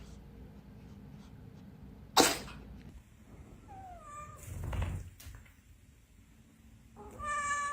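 A domestic cat meowing: a short falling meow about four seconds in and a long, held meow starting near the end. A short, sharp noisy burst comes about two seconds in.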